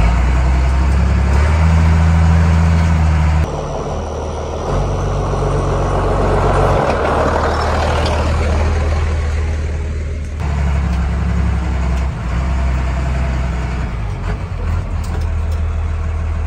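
Pickup truck's engine running steadily with a low hum, the sound shifting abruptly at about three and a half and ten seconds in. Through the middle stretch a rushing hiss swells and fades over the engine.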